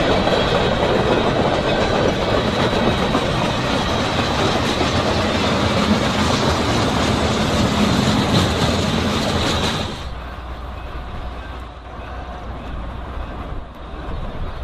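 Freight train rolling past, its wheels clicking over the rail joints, with a thin high tone over the rolling noise. About ten seconds in the sound drops suddenly to a quieter rumble.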